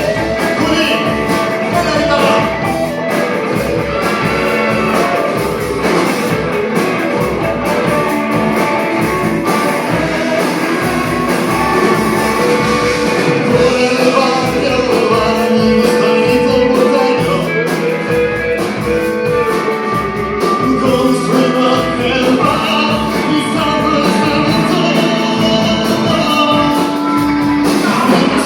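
Rock band playing live: electric guitar and bass over a steady drum-kit beat.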